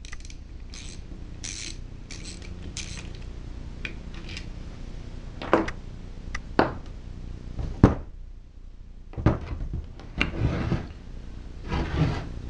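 A socket ratchet clicking in short strokes as it backs out the bolts on the crankcase cover of a Tecumseh LV195EA mower engine. Sharp metal clinks follow as the bolts are set down, then clunks and clatter near the end as the engine is lifted and turned over.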